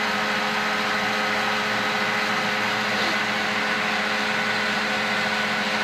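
Vacuum cleaner running steadily: a constant motor whine over the hiss of rushing air.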